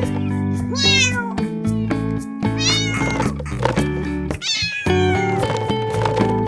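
A cat meowing three times, about two seconds apart, over background music.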